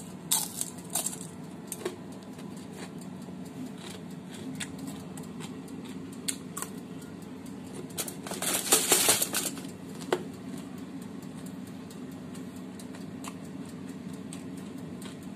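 Aluminium foil crinkling and crackling as the foil-lined air fryer basket of crisp fried fish is handled. There are scattered clicks and a denser burst of crinkling about eight seconds in, over a steady low hum.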